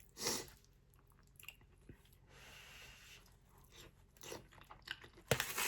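A person chewing and eating a mouthful of pepper steak and rice close to the microphone, with mouth clicks and smacks and a few louder bursts, one just after the start and a cluster near the end.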